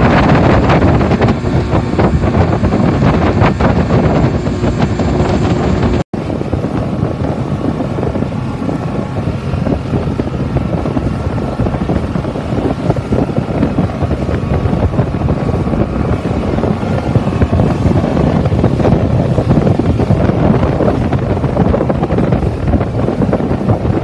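A rigid-hull inflatable boat's engine running at speed, with heavy wind buffeting the microphone. The sound drops out for an instant about six seconds in, then carries on with a slightly different texture.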